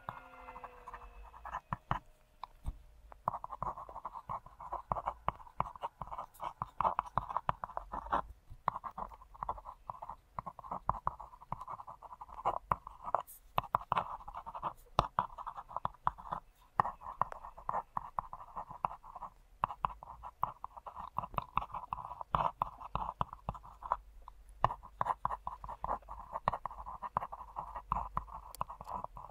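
Mechanical pencil scratching across a bare fibreboard (MDF) panel in quick sketching strokes, in runs of several seconds broken by short pauses.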